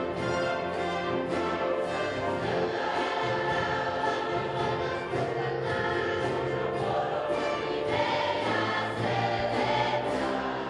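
Large mixed choir of adult and children's voices singing, accompanied by a concert wind band of clarinets, brass and percussion.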